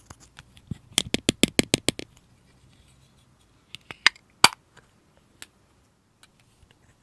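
Slime being pressed and worked by hand, giving sharp sticky popping clicks: a quick run of about eight about a second in, then a few single louder pops a couple of seconds later.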